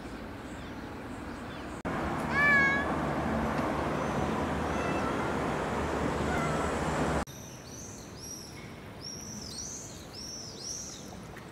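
A domestic cat meows once, a short wavering call about two seconds in, the loudest sound. Later, high chirps repeat several times over a quieter background.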